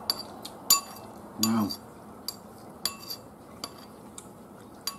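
Metal spoon clinking against a ceramic plate and bowls as food is served: scattered sharp clinks, some with a brief ring, the loudest about 0.7 s in.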